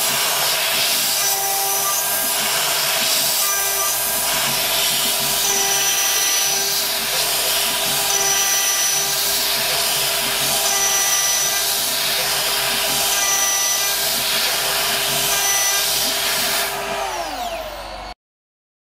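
CNC router's 2.2 kW air-cooled high-frequency spindle at about 24,000 rpm, driving a 6 mm two-flute roughing end mill in an adaptive cut through 5083 aluminium: a steady loud whine and hiss, with a ringing tone that comes and goes about every two and a half seconds. Near the end the whine falls in pitch as the spindle winds down, and then the sound cuts off suddenly.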